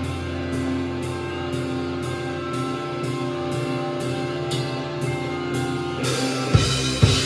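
Live rock band: electric guitars hold ringing chords over a cymbal ticking about twice a second, and the full drum kit comes back in with kick and snare hits near the end.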